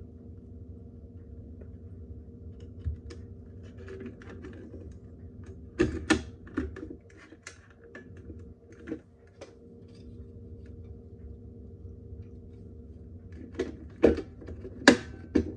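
Scattered clicks and knocks of a smoke alarm's plastic housing and 9-volt battery connector being handled while fitting the battery, over a steady low hum. The loudest knocks come near the end.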